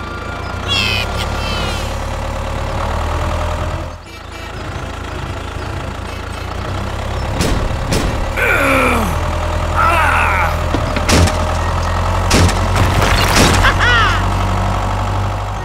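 Tractor engine running steadily, dropping out briefly about four seconds in. Short high chirps, a falling whistle and a few sharp clicks sit over it.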